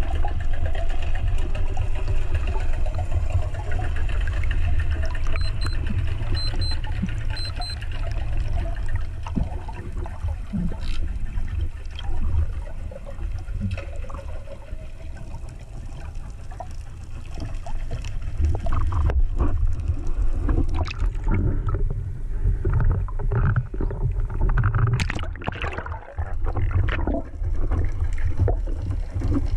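Underwater ambience heard through a camera housing mounted on a speargun: a steady low rumble of water against the housing, with small clicks and bubbles. In the last third the water noise turns uneven, with swishing bursts.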